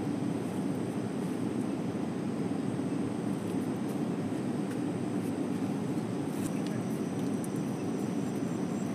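Steady rushing of a river, an even low noise of flowing water.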